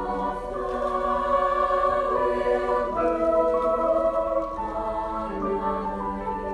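Women's high school choir singing sustained chords with piano accompaniment, the harmony moving to new notes every second or two and swelling louder in the middle.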